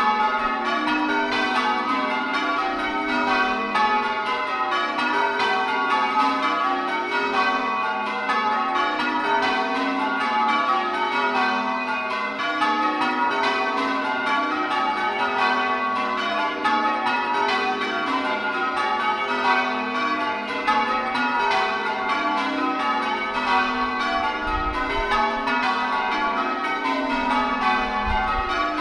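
Full-circle ring of eight church bells (tenor about 626 kg, in F sharp) being rung in sequence: a steady, rapid succession of bell strikes, each ringing on into the next.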